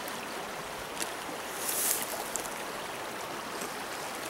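Small mountain stream flowing steadily. A faint click comes about a second in, and a brief, louder scratchy rustle follows just before two seconds.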